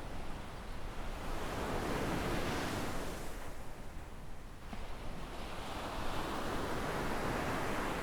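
Small waves breaking and washing up a sandy beach: the wash swells twice, with a brief lull between, over a steady low rumble.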